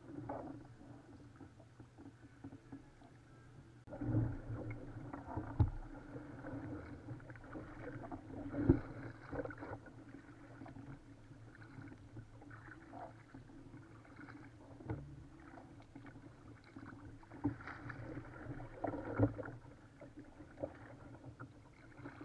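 Kayak being paddled: paddle blades dipping and splashing in the water, with a few sharp knocks, the loudest about nine seconds in.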